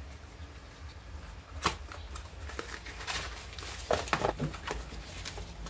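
Small cardboard box being handled and opened: scattered sharp clicks and short rustles of the packaging, a cluster of them a little past the middle, over a steady low hum.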